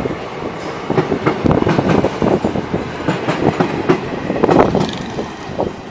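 Wheels of a fast-passing train of parcel vans clattering over the rail joints: a rapid, irregular clickety-clack over a steady rumble as the last vans rush by.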